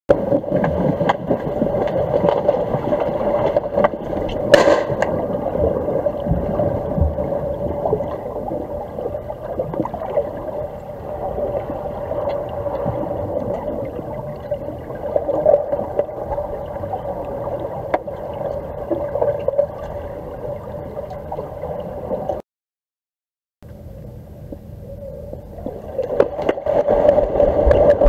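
Underwater swimming-pool ambience as heard by a submerged camera: a steady murky water noise with a constant hum and gurgling. A single sharp click comes about four and a half seconds in, and the sound drops out for about a second near the end.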